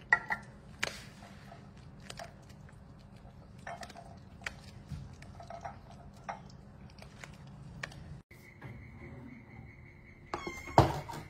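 A cat eating from a saucer, with faint scattered chewing and tapping sounds. A tin can is set down on the tiles at the start. Near the end a faint steady high whine sets in and a single sharp knock sounds, the loudest thing here.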